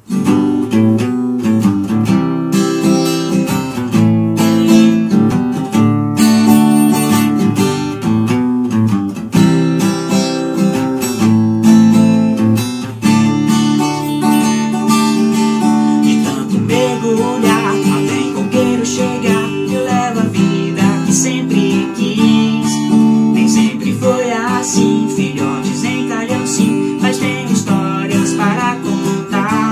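Strummed acoustic guitar playing the introduction of a song.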